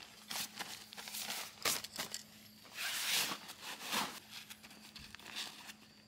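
Nylon backpack and stuff-sack fabric rustling and crinkling as gear is packed into a hiking backpack, with short handling knocks and a longer swishing rustle about three seconds in.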